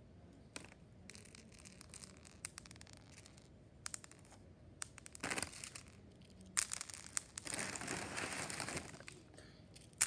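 Froot Loops cereal being scattered by hand onto a hard floor: light scattered clicks of loops landing, with longer rustling, crinkling rushes from the plastic cereal bag and pouring cereal in the second half.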